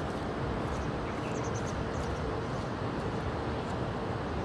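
Steady low outdoor rumble, with a few faint high chirps about a second and a half in.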